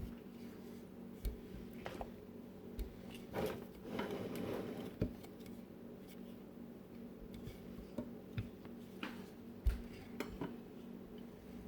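Scattered light knocks and clinks of kitchen utensils and dishes being handled while working dough, with a short stretch of rubbing and scraping about three to five seconds in, over a steady low hum.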